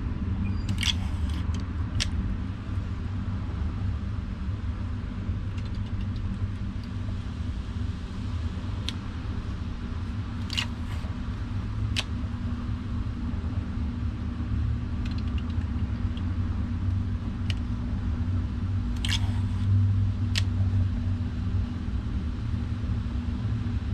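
Steady low rumble of wind buffeting the microphone on a kayak, with scattered light clicks and knocks from fishing tackle and the kayak being handled.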